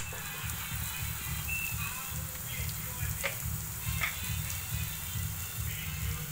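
Chopped onions sizzling steadily in hot oil in a kadhai, with green chilli–garlic paste and turmeric sitting on top. A short click comes right at the start.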